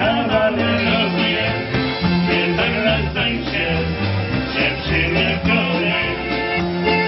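Live polka band playing a polka, with bass notes stepping about twice a second under the melody.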